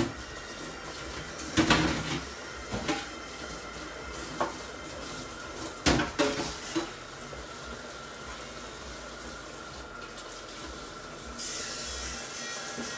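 Cookware clattering: a handful of sharp clanks of pots, lids and utensils in the first half, over a steady hiss from the pans cooking on the hob.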